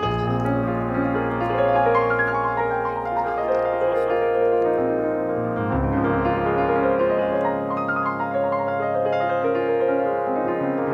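Background music led by piano, sustained notes and chords changing steadily throughout.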